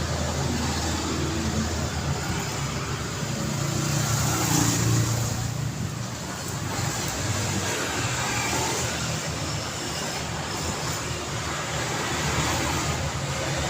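Steady road traffic: cars passing with continuous engine rumble and tyre noise, one passing a little louder about four to five seconds in.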